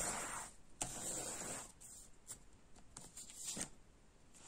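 Playing-type cartomancy cards being handled and drawn from a fanned-out deck: a few soft papery rustles and light flicks of cards sliding against each other.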